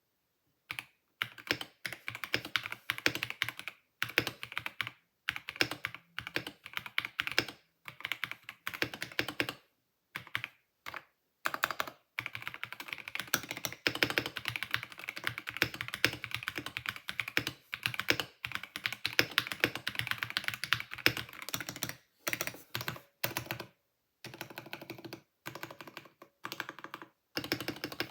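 Typing sound test on a KBD67 Lite R3 custom mechanical keyboard fitted with NovelKeys Silk switches: fast runs of keystrokes in bursts with brief pauses between them.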